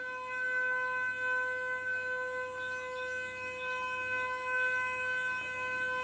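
Car horn held down in one steady, unbroken note.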